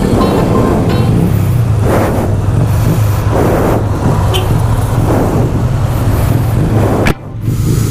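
A motorcycle engine idling steadily, with vehicles passing close by on the road, each one swelling and fading in turn. Near the end the sound drops away abruptly for a moment.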